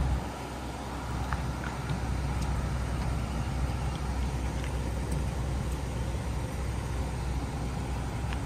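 School bus engine idling at the stop, a steady low rumble, with other waiting cars idling alongside.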